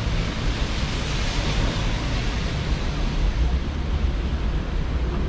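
Steady rushing noise of wind on the microphone over city traffic, with a heavy, uneven low rumble.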